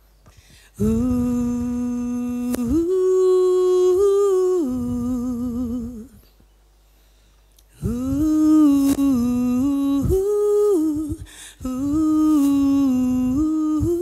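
Wordless sung opening of a song: a voice humming long held notes with vibrato, stepping between a few pitches, in two phrases with a short pause about six seconds in.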